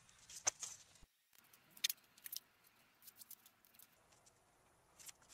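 Faint, scattered light taps and clicks of foam insulation board and metal measuring tools being handled and set down.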